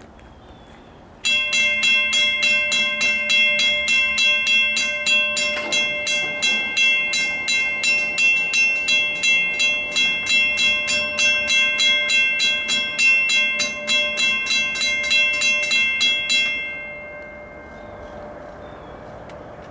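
Railroad crossing warning bell ringing in rapid, evenly spaced strikes, starting suddenly about a second in and stopping after roughly fifteen seconds, a sign of a train approaching.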